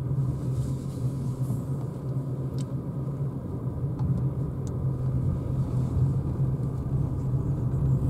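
Steady low road and tyre rumble inside the cabin of a Renault Zoé electric car as it drives, with no engine note.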